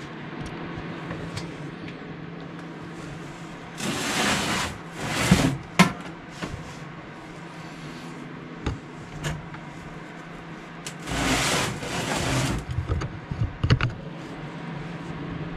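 Workshop handling sounds at an injector test bench: two spells of rustling of about a second each, and a few sharp clicks and knocks of metal parts, over a steady low hum.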